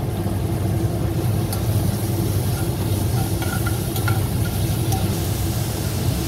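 Onions frying in a pan with ginger-garlic paste, a faint sizzle over a steady low hum, with a few light clicks of a spoon.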